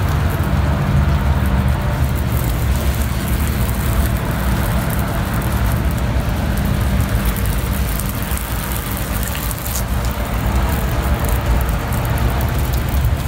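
Spray wand on a hose misting liquid cleaner onto wooden trim: a continuous hiss over a steady low mechanical drone.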